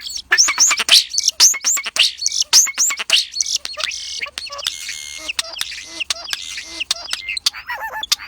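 Starling singing: a rapid, unbroken jumble of short sweeping whistles, chirps and sharp clicks.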